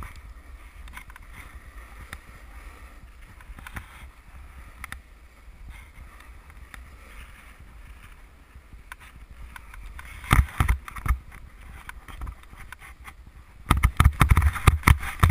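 Snowboard sliding and scraping over snow with a steady low rumble, growing louder and rougher in two stretches: briefly about ten seconds in, and again near the end.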